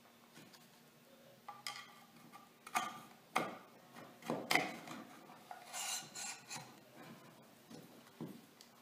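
A hard-drive tray being jiggled and pushed into the tight rails of a CRU ToughTech Secure m3 enclosure: irregular scraping and rubbing with small clicks, a longer scrape about six seconds in.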